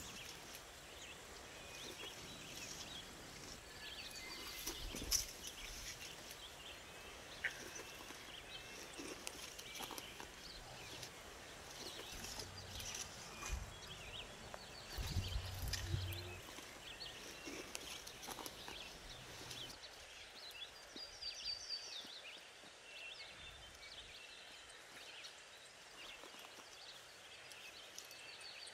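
Quiet outdoor ambience with scattered small clicks and rustles of figs being picked off dry ground and dropped into wicker baskets, a few low thumps around the middle, and faint bird chirps now and then.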